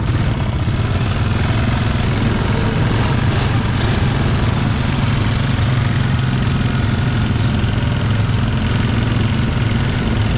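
Off-road vehicle's engine idling steadily.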